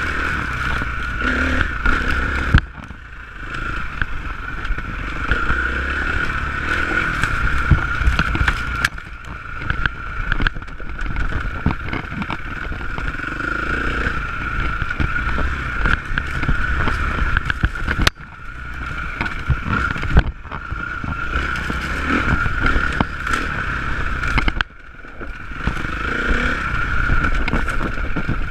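Enduro motorcycle engine running while riding a rough dirt trail, with the rattle and knocks of the bike over the ground. The engine sound drops away briefly a few times, then picks up again.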